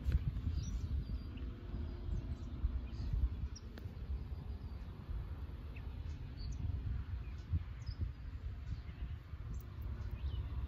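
Wind rumbling on the microphone, with scattered short bird chirps over it.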